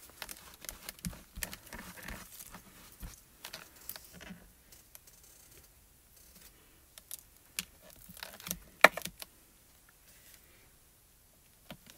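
Hands handling clear plastic stamping tools and stamps: scattered soft plastic clicks and taps with faint rustling, and a few sharper clicks about seven to nine seconds in.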